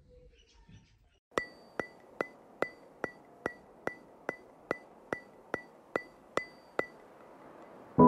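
Fourteen evenly spaced, pitched ticks, about two and a half a second, like a wood block or clock tick, part of the edited soundtrack. Background music with piano comes in right at the end.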